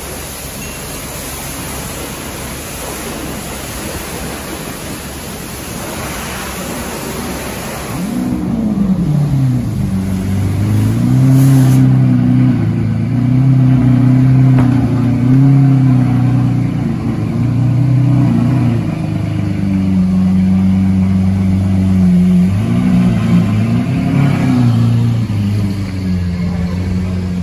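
Pressure-washer spray hissing for the first several seconds, then a car engine revving up and down over and over, its pitch rising and falling every second or two.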